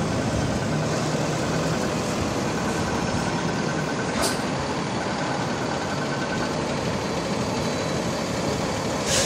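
NYPD International dump-body barrier truck's diesel engine running amid steady street traffic noise, with a short hiss near the end.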